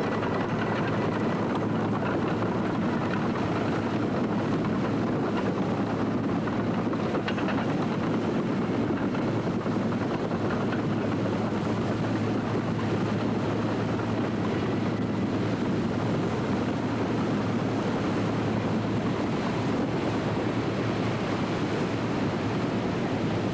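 Steady diesel engine noise from a tracked launching tractor driving a lifeboat carriage into the sea, mixed with surf and water washing around its tracks. A low hum in the engine sound fades near the end.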